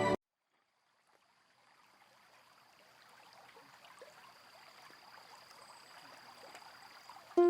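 Background music cuts off abruptly, leaving near silence; a faint, even hiss with a thin steady high tone slowly fades in, and plucked-string music starts again at the very end.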